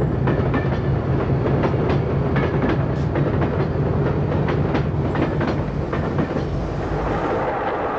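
Class 46 diesel locomotive's Sulzer twelve-cylinder engine running with a steady low hum as the train moves off slowly, while the wheels of the locomotive and coaches click and clack over the rail joints.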